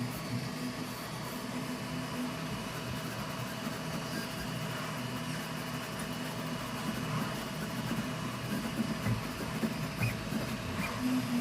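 Snapmaker U1 3D printer running a print: its motors hum in shifting low tones as the print head moves, over a steady higher hum from the cooling fans.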